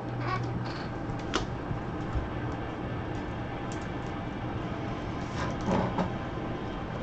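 Gloved hands handling a trading-card box and its packs: scattered rustles and light knocks, loudest in a short cluster about five and a half seconds in, over a steady low hum.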